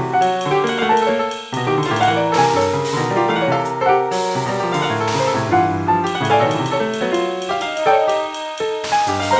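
Piano playing a dense, fast-moving passage of an original free-jazz piece, with many notes sounding at once in the low and high registers and no break.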